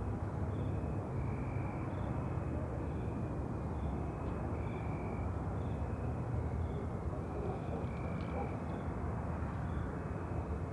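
Night ambience: short high chirps from calling insects or frogs repeat about once or twice a second over a constant low rumble and hiss.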